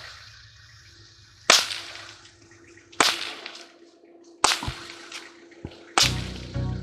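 A ritual whip cracked sharply four times, evenly about every second and a half. Low rhythmic beating comes in with the last crack.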